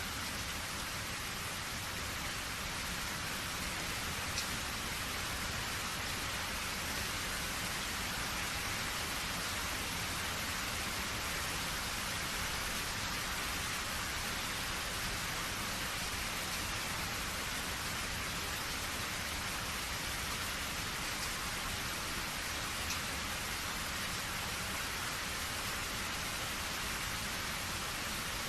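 Steady rain falling, an even hiss, with a couple of single drop ticks standing out.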